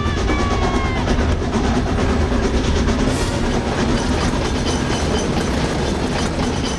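Steam locomotive running hard at speed: a steady heavy rumble with fast rhythmic clatter, under orchestral film score. A short falling pitched tone sounds right at the start, and a brief hiss about three seconds in.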